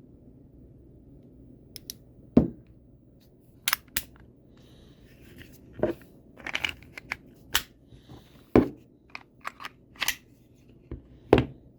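A dozen or so irregular sharp clicks and knocks from handling a KWC 24/7 Gen 2 blowback BB pistol and its slide, the loudest knocks about two seconds in, past the middle and near the end.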